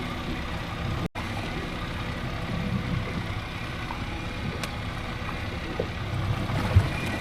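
Boat's outboard motor running steadily, a low engine drone mixed with wind and water noise, with a brief cut-out about a second in.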